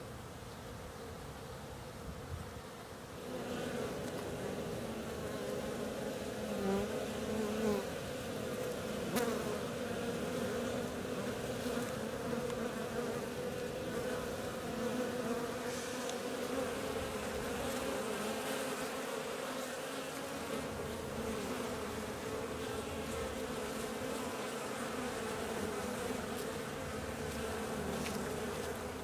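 Honeybees buzzing in flight around their hive, a steady hum that grows louder about three seconds in, with single bees passing close and their pitch sliding up and down. The bees are out on winter cleansing flights on a mild day.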